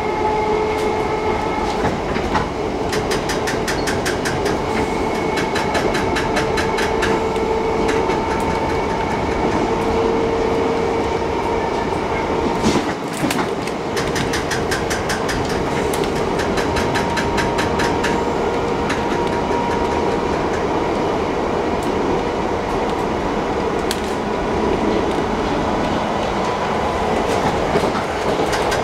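A London Underground 1972 Mk2 stock train heard from inside the car while running at speed: a steady rumble of wheels on rail with a constant whine over it. Several times the wheels click rapidly over rail joints in quick runs of a second or two.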